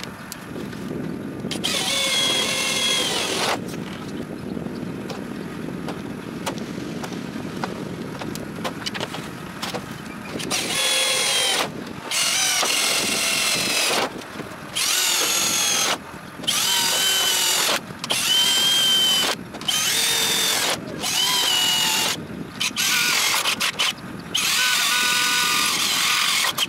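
Bosch Professional 18V cordless drill boring holes through thin sheet-metal flashing. It runs in about ten short bursts of a second or two each, a high whine each time the bit cuts through the metal.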